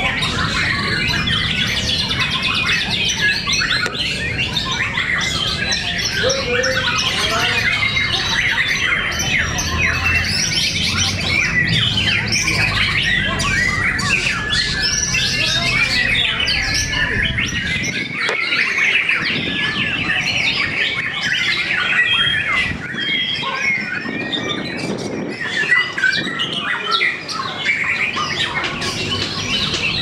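Many caged white-rumped shamas (murai batu) singing at once in a song contest, a dense, unbroken chorus of overlapping rapid whistles and chirps.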